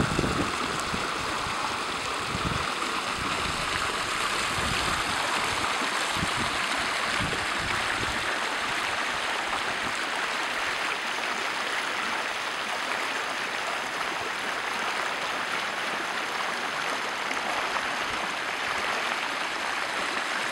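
Flash-flood runoff rushing across a paved street and over the curb, a steady sound of fast, shallow moving water. A few low bumps come in the first several seconds.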